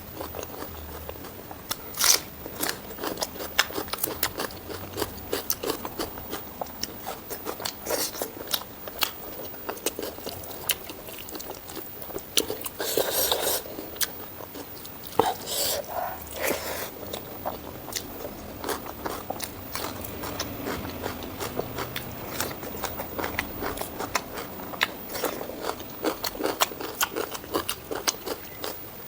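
Close-miked eating: steady wet chewing and mouth clicks, with a few louder crunchy bites about two seconds in and again around thirteen and sixteen seconds in, of a meal of mutton curry and rice with raw salad vegetables.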